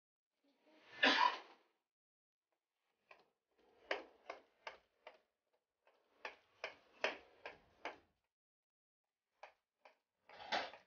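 Knife chopping through a filled strip of Maultaschen pasta dough onto a paper-covered counter: two runs of four or five sharp cuts at about two and a half a second, with a few more cuts later. A longer scraping rustle comes about a second in and again at the very end.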